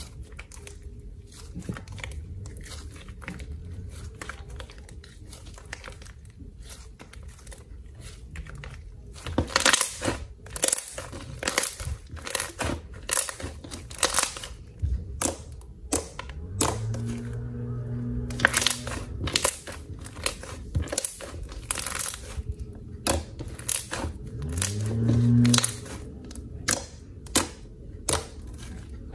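Thin, glossy white glue-and-borax slime being stretched, poked and kneaded by hand: sticky crackling and sharp popping clicks, sparse at first and coming thick and loud from about a third of the way in. Twice, later on, comes a longer low-pitched squelch.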